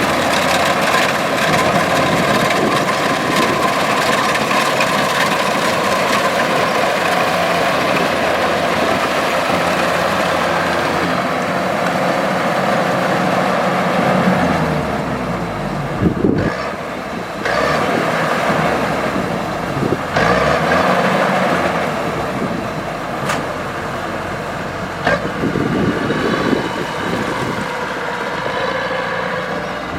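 Kubota DC-105X combine harvester's diesel engine and threshing machinery running steadily. The sound eases and shifts about halfway through, with a few sharp knocks and clatters.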